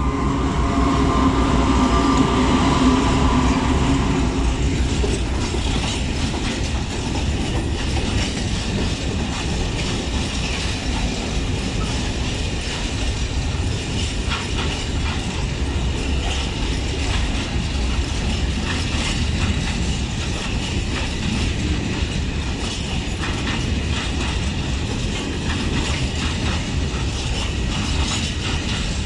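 A PKP Cargo ST44 diesel locomotive, the Soviet-built M62 with a two-stroke V12, passes by, its engine note strong for the first few seconds and then fading. It is followed by a long train of open freight wagons rolling past with a steady rumble and the clatter of wheels over rail joints.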